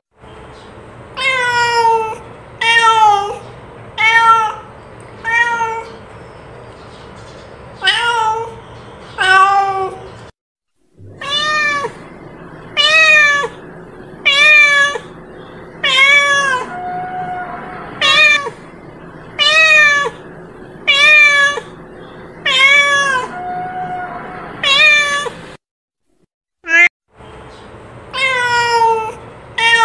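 Domestic cat meowing over and over, short calls about every second or so, each rising then falling in pitch, with two brief breaks.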